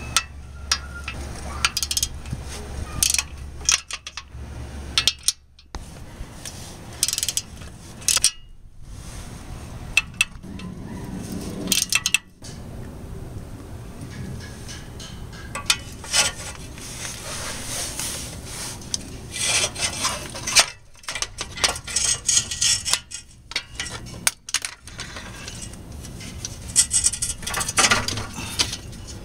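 Socket ratchet clicking on the catalytic converter's flange nuts, mixed with irregular metal clinks and scrapes from tools and exhaust parts being handled.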